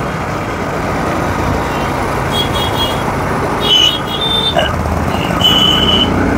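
Riding a Bajaj Pulsar NS160 motorcycle through dense city traffic: steady engine, tyre and wind noise, with several short, high-pitched horn beeps from the surrounding vehicles.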